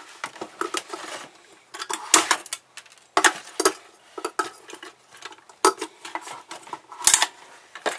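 Irregular clinks, knocks and rattles of metal and plastic parts being handled and pried apart while an old water purifier is dismantled, in uneven clusters with louder knocks about two, three, five and a half and seven seconds in.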